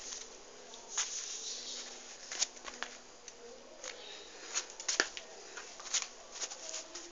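Lego pistol being handled: irregular light plastic clicks and short rattles, the sharpest click about five seconds in.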